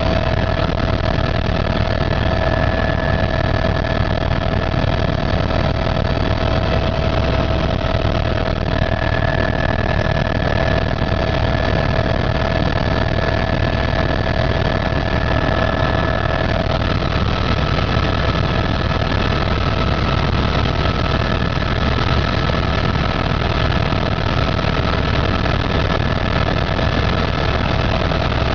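Helicopter engine and rotor running steadily: a constant low drone with a steady whine over it.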